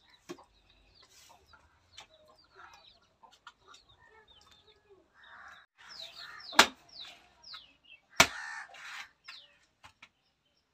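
Chickens clucking in short, falling calls, with two sharp chops about a second and a half apart a little past halfway, as a knife hacks into a palmyra palm fruit.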